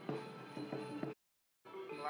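Background music with a steady beat. It drops out to complete silence for about half a second a little past the middle, then resumes.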